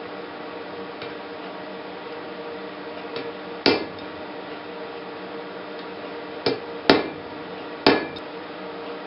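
Blacksmith's hammer striking metal at the anvil: four sharp, irregularly spaced blows that each ring briefly, over a steady background hum.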